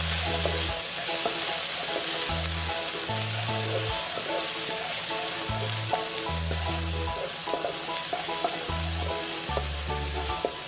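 Chopped garlic sizzling as it fries in hot oil in a pan: a steady frying hiss with a few small ticks.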